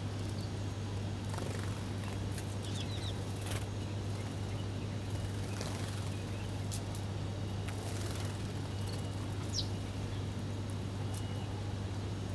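Small birds feeding, with a few short chirps now and then and scattered brief clicks, over a steady low hum.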